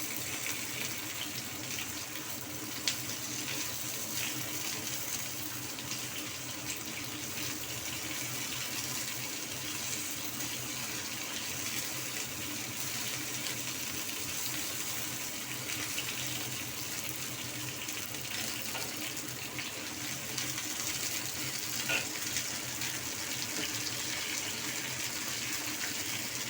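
Peppers stuffed with minced fish cooking in a pan on the stove: a steady sizzling hiss with a few faint pops.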